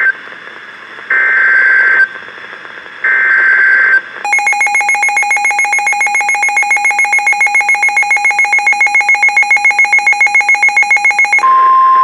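NOAA Weather Radio emergency alert: three short bursts of screechy SAME digital header data with radio hiss between them, the first cut off at the start. Then a fast, buzzy pulsing alarm beep for about seven seconds, and near the end the steady 1050 Hz weather radio warning tone begins.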